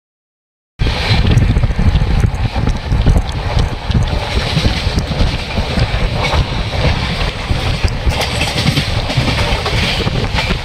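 Passenger train running at speed, recorded from a carriage window: a loud steady rumble of wheels on rail, with wind buffeting the microphone. It starts abruptly about a second in, after a brief silence.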